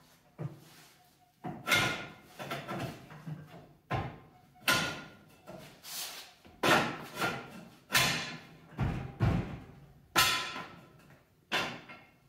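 Irregular metal-on-metal clanks and knocks, about one every second or two, each ringing briefly as it fades: hand tools and a long steel bar striking the car's front suspension parts.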